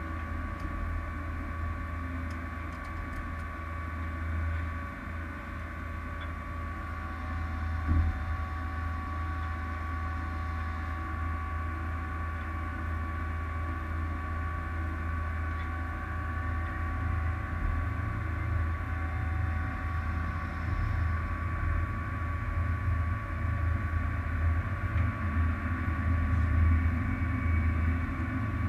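Small experimental aircraft's engine idling on the ground, a steady low drone with a fast pulsing rumble and a few steady higher tones over it. A single knock about eight seconds in, and the engine grows slightly louder near the end.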